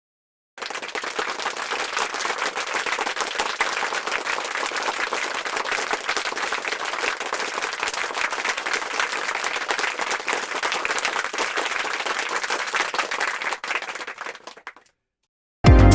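A crowd applauding steadily, with dense rapid clapping, for about fourteen seconds before it thins out. Loud music cuts in right at the end.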